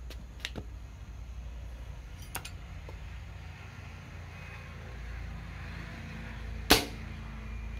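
A .22 air rifle, an NX100 converted with a UTA .22 barrel, fires once about two-thirds of the way in: a single sharp crack as the pellet is shot point-blank into a wooden block to test its penetration. A couple of faint clicks come before the shot.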